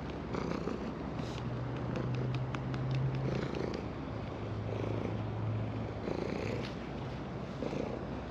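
Orange tabby cat purring steadily as it is stroked, a low rumble that swells in long stretches of about two seconds.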